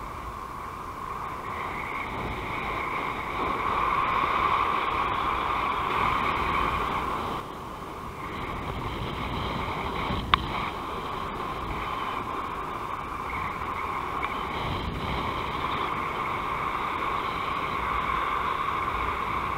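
Air rushing past the camera microphone in paraglider flight: a steady wind hiss that swells and eases, with one sharp click about ten seconds in.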